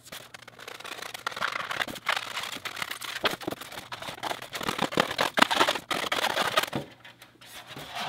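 Hobby knife blade cutting through a styrofoam cooler lid: a rapid run of short, scratchy scraping strokes that dies away about a second before the end.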